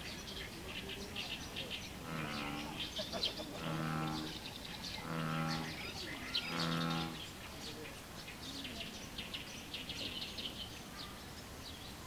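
American bullfrog calling: four low, droning, cow-like moos, each under a second long, in a series between about 2 and 7 seconds in. Small birds chirp high and steadily throughout.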